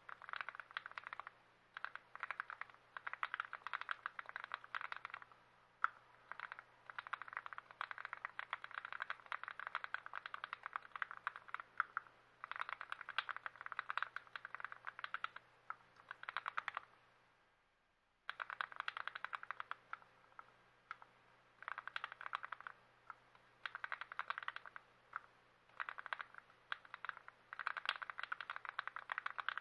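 Keystrokes on a TX66 custom mechanical keyboard, typed in quick bursts of clicks with short pauses between them, over a faint steady low hum. The sound cuts out briefly a little past the middle.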